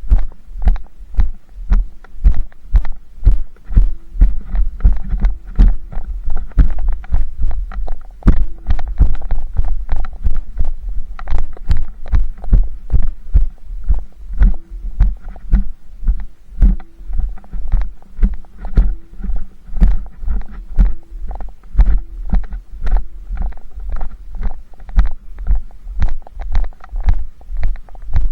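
Steady rhythmic low thumping close to the microphone, about two to three beats a second, with a faint on-and-off hum above it.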